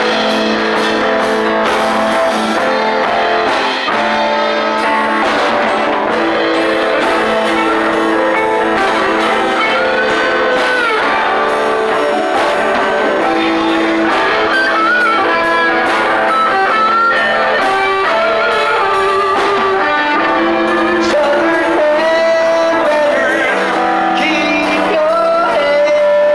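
Live rock band playing: electric and acoustic guitars, saxophone and drums, amplified through PA speakers.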